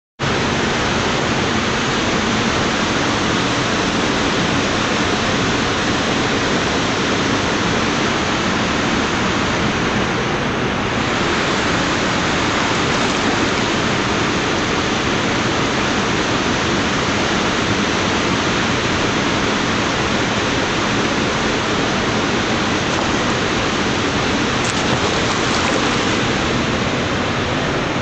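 Steady rush of river water spilling over a low weir.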